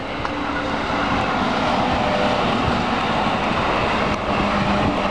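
Steady, loud vehicle noise with a low humming tone.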